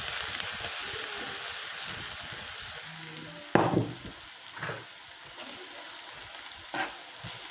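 Chopped leek sizzling as it sautés in a frying pan. About three and a half seconds in there is a sharp knock as the pan is set down on the hob, followed by a couple of lighter clicks of a spatula against the pan as it is stirred.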